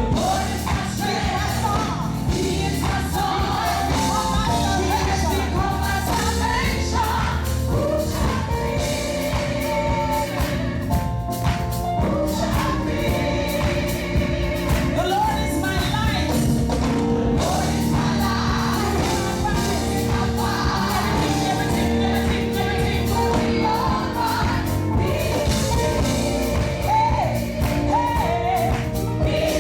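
Live gospel music: a choir or vocal group singing over a full band with steady bass.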